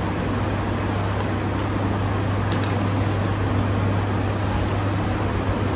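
Steady low hum with an even rushing noise over it, like machine or fan noise in a room, with a few faint small clicks a little before halfway.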